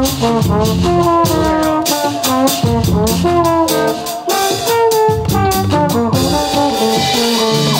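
Live band music: brass horns playing a melody over drums and a kayamb, the flat reed rattle of Réunion, shaken in rhythm, settling into held notes near the end.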